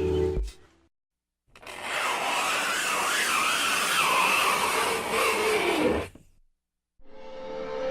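Fingernails scraping across a blackboard: one long rasping scrape of about four and a half seconds, with a high squeal wavering through it, starting and stopping abruptly.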